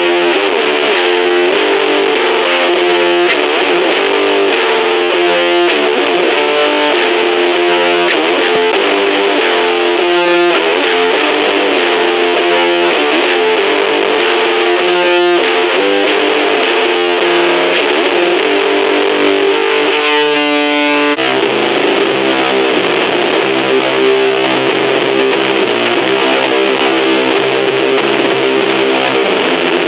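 Electric guitar played through a fuzz pedal into a small battery-powered Junkbox Death Metal Droid amp: heavily distorted, sustained notes and chords that change every second or so, moving to lower notes about twenty seconds in.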